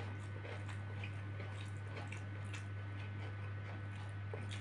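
A person chewing a mouthful of duck and rice, with faint wet mouth clicks and smacks. A steady low hum runs underneath.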